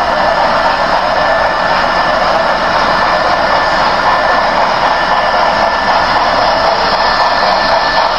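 A steady, loud hiss with a thin high whine held through it, unchanged throughout.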